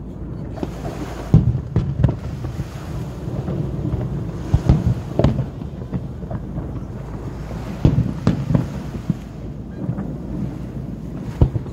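Fireworks shells bursting: about half a dozen deep booms at uneven intervals, a pair close together around the middle and another near the end, over a continuous low rumble.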